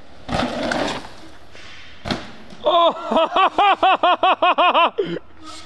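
Mountain bike tyres rushing over a dirt trail, with a sharp thud about two seconds in. Then the loudest sound: a rapid run of about a dozen identical pitched calls, each rising and falling, about five a second for two seconds.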